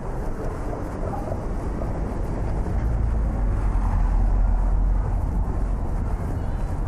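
City street traffic: a steady low rumble of passing vehicles that swells about three to five seconds in and eases toward the end.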